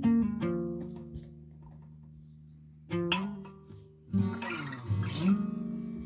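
Acoustic guitar chords strummed and left to ring out, each dying away; near the end the notes slide down in pitch and back up.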